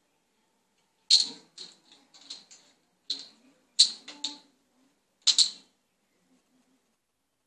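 Plastic bottle cap clattering and skittering across a tiled floor as kittens bat it: a string of sharp, irregular clicks and taps, the loudest about a second in, near four seconds in and past five seconds in.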